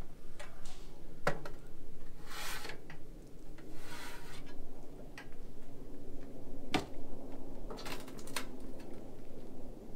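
Travel trailer's folding metal entry steps being lifted and folded up into the doorway: several short bursts of metal sliding and scraping, with a couple of sharp clanks.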